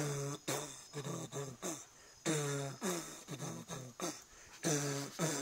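A person's voice making wordless mouth music: short sung syllables, each swooping down in pitch at its start, about two a second with two brief pauses.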